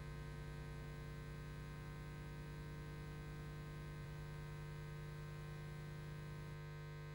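Faint steady electrical hum with a low hiss from a VHS tape transfer, over blank end cards with no music or speech.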